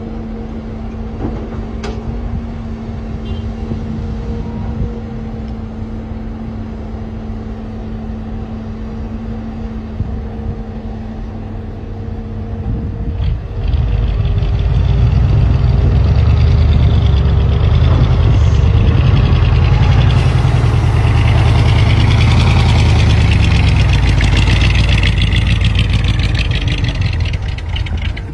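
Truck engine idling with a steady hum, then, about halfway through, revving up and running much louder for about fourteen seconds before easing off near the end.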